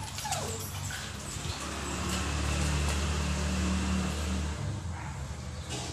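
A motor vehicle's engine passing, a low steady hum that swells from about a second and a half in and fades out near the end. A puppy gives a short falling whimper at the very start.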